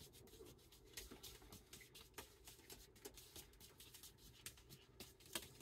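Faint soft taps of juggling balls being caught and tossed by hand, irregular, a few a second, over quiet room tone.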